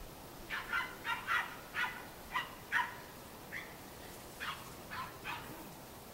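Cairn terrier puppies yapping in play: about ten short, high yaps in quick succession, thinning out after about three seconds.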